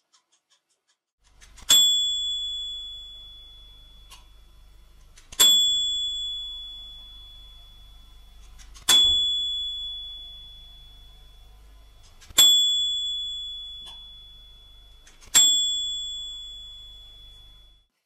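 A bright bell ding, struck five times about three and a half seconds apart, each ringing out and fading over two to three seconds. A faint low hum runs underneath.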